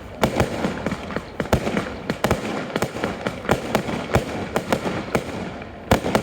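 Fireworks display: a rapid, uneven series of bangs, several a second, over continuous crackling, with one of the loudest bangs near the end.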